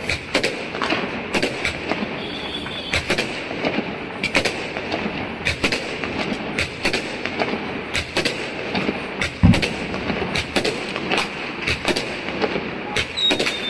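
Fireworks going off in numbers all around: a dense, irregular run of bangs and cracks over a constant crackling haze, with one heavier boom about two-thirds through. Near the end a high whistle slides slightly down.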